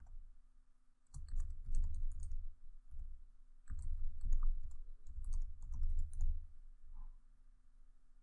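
Typing on a computer keyboard: three short runs of quick keystrokes with pauses between them.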